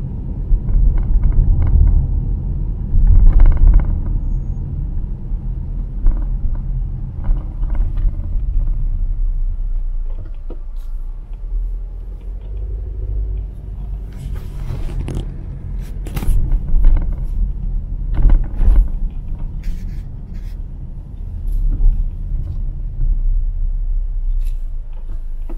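A car driving at street speed: a steady low rumble of road and engine noise, with a few short knocks or taps now and then.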